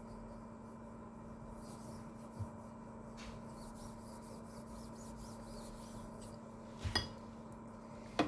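Quiet handling of laser-printer fuser parts, with faint rubbing, a small knock, and two sharp clicks about seven seconds in as plastic and metal pieces are worked loose. A steady low electrical hum runs underneath.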